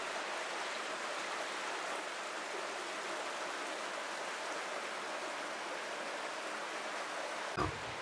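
Shallow stream running over rocks and stones, a steady, even rushing.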